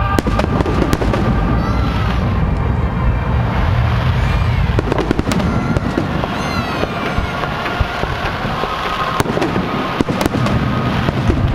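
Fireworks display: aerial shells bursting in a rapid series of sharp bangs over a continuous low rumble.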